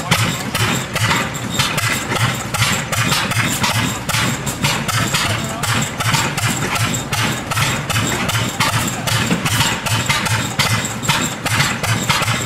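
Antique stationary engines running, their exhaust firing in sharp pops about four times a second, with more than one engine going at once.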